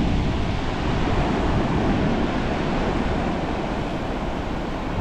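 Ocean surf washing up on the beach, with wind rushing over the microphone.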